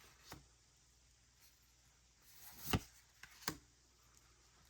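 Trading cards being handled and flipped: a few light taps and clicks, with a brief soft rustle before the sharpest tap about two and a half seconds in.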